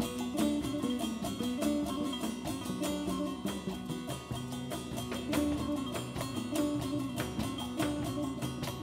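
Instrumental passage of Persian folk-blues: a plucked dotar playing the melody over plucked upright double bass and a drum kit with cymbals.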